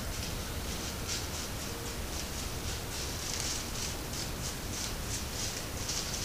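Soft, irregular rustling of dry leaves a few times a second over a steady hiss: wild turkeys walking on a leaf-covered forest floor.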